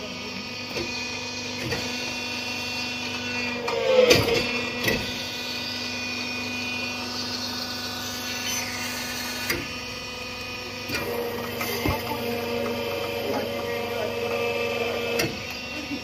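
Steady machinery hum held at several pitches, with a few knocks and clatters; the loudest clatter comes about four seconds in.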